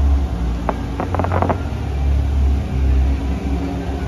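Fireworks display: a steady low rumble from the bursts, with a short spell of crackling about a second in.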